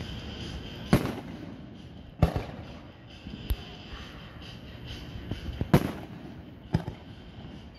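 Aerial firework shells going off: four loud sharp bangs, about a second in, just after two seconds, and a pair near the end, plus a softer pop in between.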